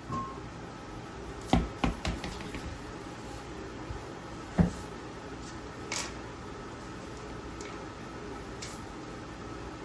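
Metal tools clinking and knocking against hard parts, a few scattered sharp clicks with the loudest knock about halfway through, over a steady low hum.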